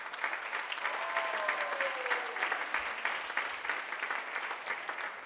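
Audience applause, many hands clapping at once, slowly dying down.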